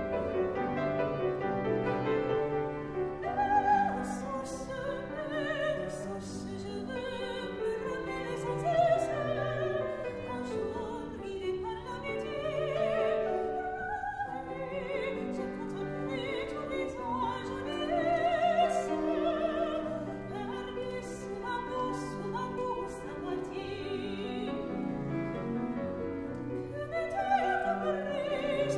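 Classical singing with vibrato, accompanied by piano.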